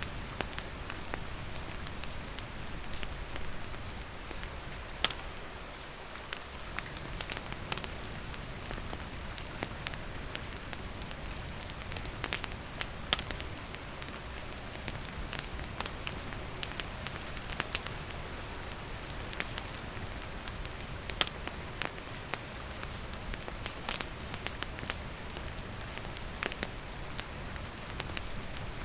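Wood campfire crackling with irregular sharp pops over a steady hiss of heavy rain falling on surfaces.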